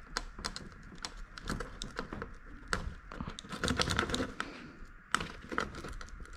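Irregular small clicks and rustling of needle-nose pliers and gloved hands working wires and push-on connectors on a window air conditioner's control board, busiest about four seconds in.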